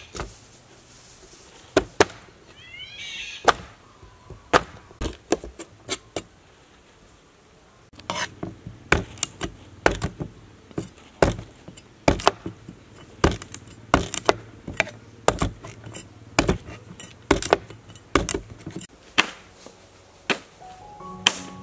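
Cleaver chopping cut fruit pieces on a wooden cutting board: sharp knocks, sparse at first, then a quick irregular run of about two to three chops a second from about eight seconds in. Music comes in near the end.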